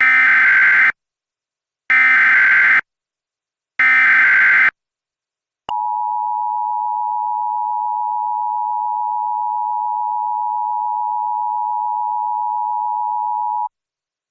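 Emergency Alert System tones: three short screeching SAME digital header bursts, about two seconds apart, then the steady two-tone EAS attention signal held for about eight seconds.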